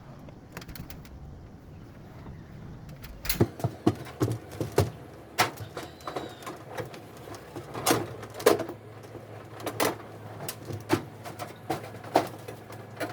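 Irregular sharp knocks and clicks, about a dozen strong ones, starting about three seconds in over a low steady hum.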